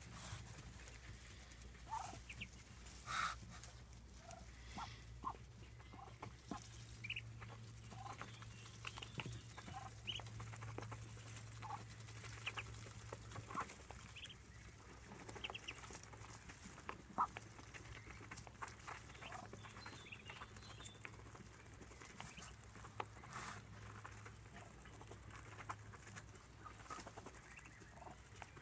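Muscovy ducklings feeding: scattered short high peeps, with occasional sharp clicks of bills pecking at a metal feed pan.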